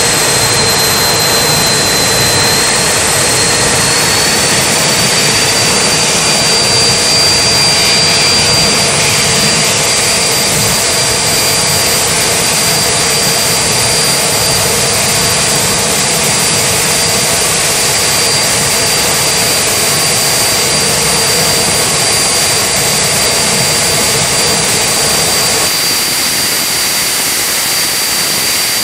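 Home-made jet engine running loud and steady, a dense roar with a high turbine whine on top. The whine sags slightly early on, then climbs a little and holds steady.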